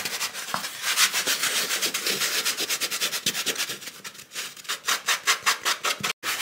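Quick repeated rubbing and scraping strokes, about four or five a second, as the crumbling old foam and glue residue of a vintage motorcycle helmet's liner are scrubbed off its styrofoam shell.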